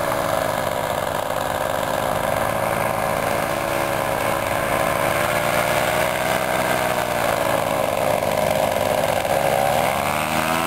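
Paramotor's engine and propeller droning steadily in flight, its pitch wavering slightly and then rising near the end.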